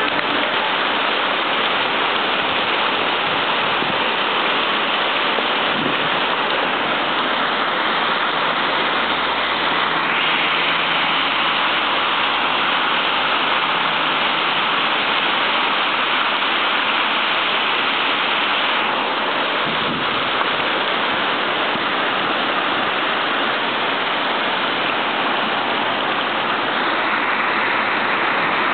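Torrential downpour hissing steadily onto the street and pavement, a dense unbroken rush of rain. Cars pass through the water lying on the road, their engines and tyres faintly heard under the rain for a few seconds around the middle.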